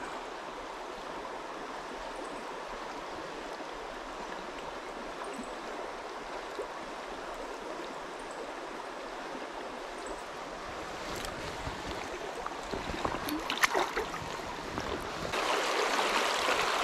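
Shallow, clear stream running over a stony bed: a steady rush of water, with a few knocks and clicks in the second half, and the flow growing louder and brighter near the end.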